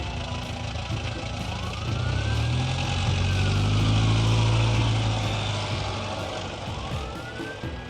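Police car siren wailing, sweeping slowly up and down in pitch, over the vehicle's rumble. The rumble swells to its loudest about four seconds in and then fades as the car goes past.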